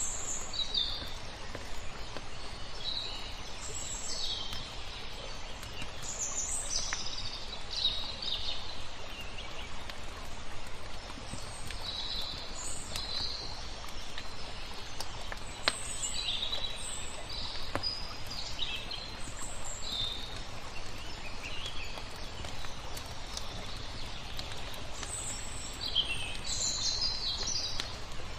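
Small birds chirping and twittering in short, scattered calls over a steady hiss of flowing water, with an occasional sharp crackle from a wood fire.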